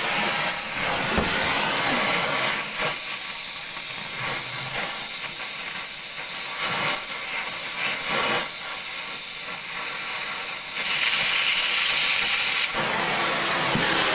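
Cutting torch hissing against a broken bolt in a cast cylinder head, heating it, then hissing louder for about two seconds near the end as the cutting oxygen is hit to blow the molten bolt out of the hole.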